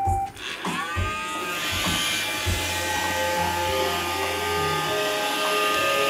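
iRobot Roomba 550 robot vacuum's motor and brushes spinning up about a second in, with a rising whine, then running steadily with a whirring hum as it starts cleaning.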